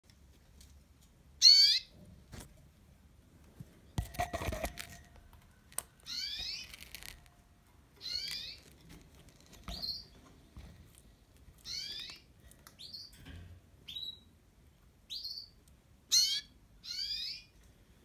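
Canaries calling: about ten short calls every second or two, most sliding quickly down in pitch, with a few brief rising chirps between them. About four seconds in, a short burst of rustling and knocking.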